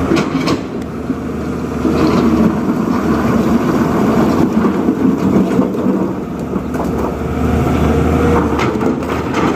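JCB 3DX backhoe loader's diesel engine running steadily under work, with a few short knocks scattered through it.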